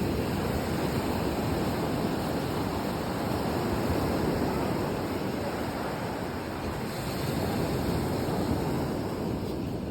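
Ocean surf: a steady wash of breaking waves that swells and eases gently in level.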